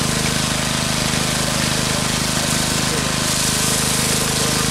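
An engine running steadily with an even pulsing beat, over the hiss of water spraying from a hose.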